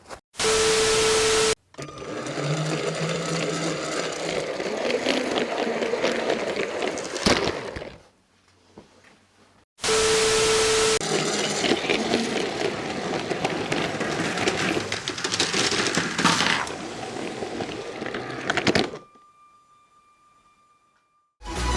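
Motorised LEGO train running along plastic track: a steady mechanical whirr and rattle with many fine clicks, heard in two separate runs with silences between. Each run opens with about a second of loud hiss carrying a steady beep-like tone.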